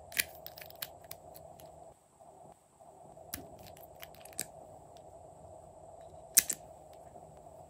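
Short sharp plastic clicks and taps from a small plastic makeup tube being handled and uncapped, about half a dozen in all, the loudest a double click near the end, over a faint steady hum.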